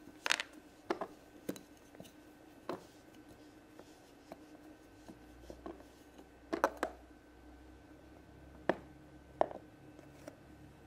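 Scattered light clicks and taps of plastic Play-Doh tools, a roller and a shape mold, handled on a tabletop while the dough is rolled out and pressed, with a small cluster of clicks about two-thirds of the way through.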